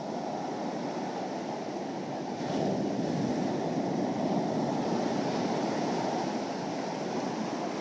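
Ocean surf washing in, with wind buffeting the microphone. The rush swells louder about two and a half seconds in and eases off near the end.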